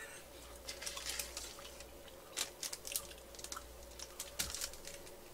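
Chewing a macaron close to the microphone: irregular small crunches and wet mouth clicks over a faint steady hum.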